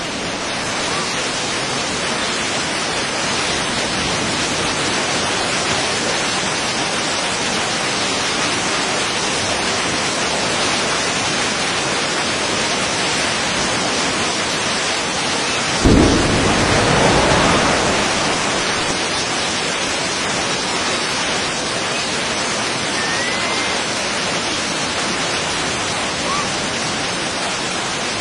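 A steady rushing roar like heavy rain, with one sudden deep boom about halfway through that rumbles on for a couple of seconds before settling back.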